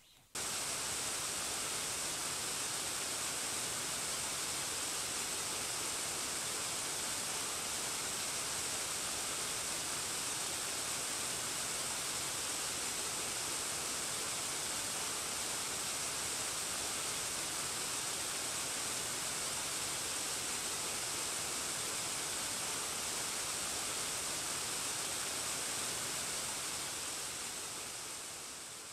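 Waterfall pouring into a pool: a steady rush of falling water that cuts in suddenly and fades out near the end.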